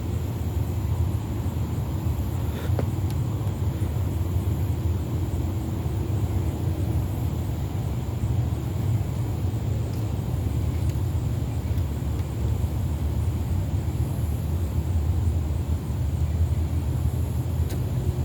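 Jet airplane passing overhead: a steady low rumble of its engines.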